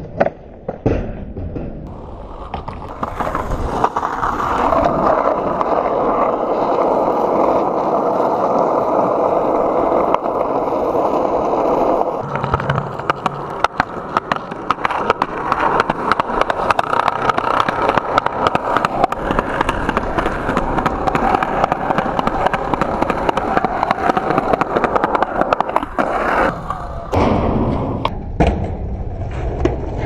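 Skateboard wheels rolling on concrete: a steady rumble run through with frequent sharp clicks, with a few hard board impacts in the first second.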